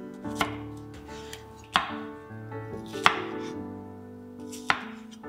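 Chef's knife chopping a red bell pepper on a wooden cutting board: four sharp knocks of the blade striking the board, spaced a second or more apart. Background music plays under them.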